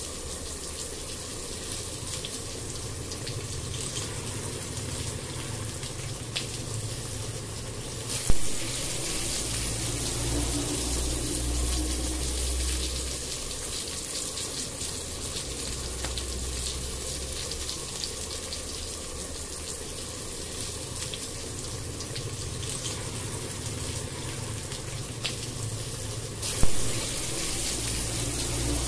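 Tomato and onion masala frying in oil in a non-stick pan, a steady sizzle with fine crackles as it is stirred with a wooden spatula. Two sudden loud clicks, about eight seconds in and near the end.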